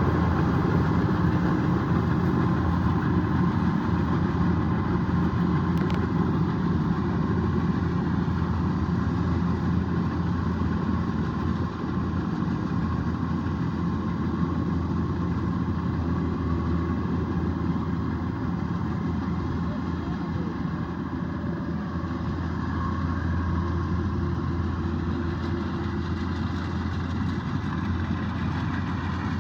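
Kubota DC-105X combine harvester's diesel engine running steadily with a constant low drone, gradually getting a little quieter.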